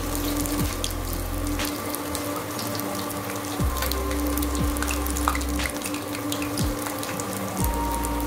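Banana-flower bajji fritters deep-frying in hot oil in a steel kadai: a steady sizzle with fine crackling throughout. Under it, a low hum comes and goes about every four seconds.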